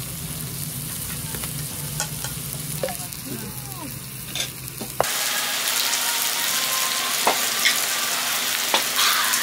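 Food sizzling over heat, a steady hiss with scattered pops. A low steady hum runs under it until a cut about five seconds in, after which the sizzle is louder and brighter.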